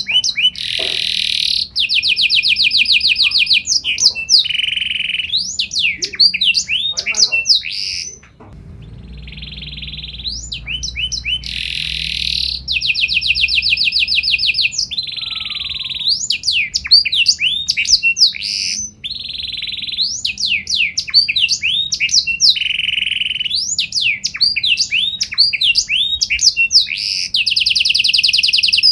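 Domestic canary singing a long, continuous song of fast trills and repeated swooping notes, with a short break about eight seconds in.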